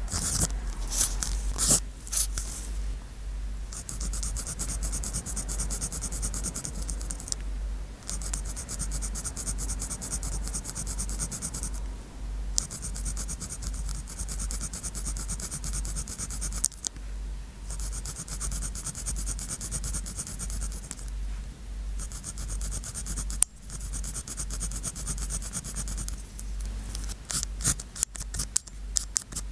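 Pen writing on sticky-note paper: a steady scratching of the nib in stretches of a few seconds, broken by short pauses between them. Sharper, separate ticks of the pen come in the first couple of seconds and again near the end.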